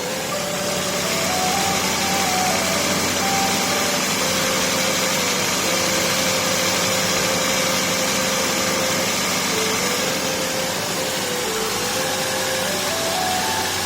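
Toyota Vitz engine idling steadily, with a simple stepping tune playing quietly over it.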